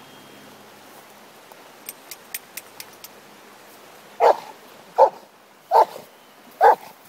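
Golden retriever giving four short, loud barks in quick succession, starting a little past halfway, after a few faint ticks.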